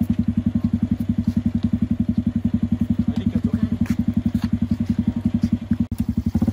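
Homemade buggy's 110cc petrol engine idling with an even, fast chug, about ten beats a second.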